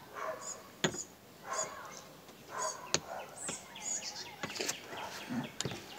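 Pestle knocking and grinding in a mortar as wood sorrel is crushed: a few sharp knocks spaced a second or two apart, with rubbing in between. Birds chirp in the background.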